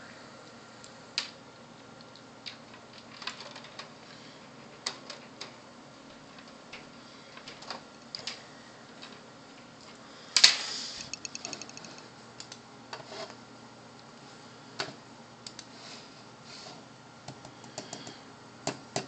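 Scattered clicks and taps of a computer mouse and keyboard, over a faint steady hum. A louder clack comes about ten seconds in, followed by a quick run of small clicks.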